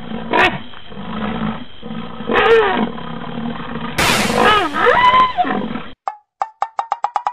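A large animal roaring, several calls in a row that rise and fall in pitch, the loudest about four to five and a half seconds in. The calls stop about six seconds in, and a fast run of short sharp clicks follows, speeding up.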